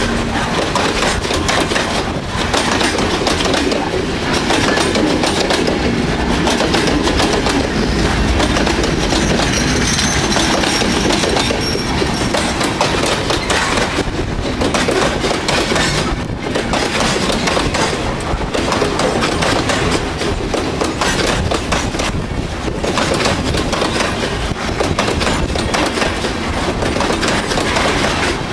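Freight train of loaded grain hopper wagons rolling past close by, steel wheels clattering and clicking on the rails in a loud, steady rumble.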